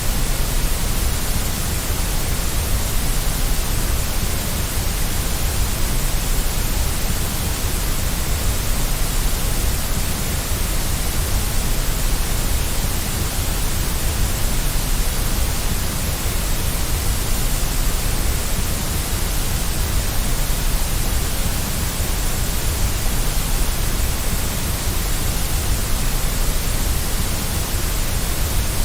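Steady white noise for soothing a baby: an even, unchanging hiss with a deep rumble underneath.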